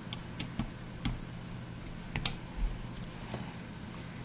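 Scattered light clicks and taps of hardware on a bow's sight being handled and checked for tightness, the loudest a little past two seconds in.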